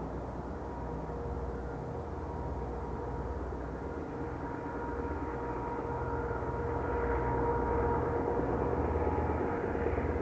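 Two DF4B diesel locomotives hauling a passenger train, heard from a distance as they approach. A steady engine drone with a low rumble and a held mid-pitched hum grows slightly louder about two-thirds of the way through.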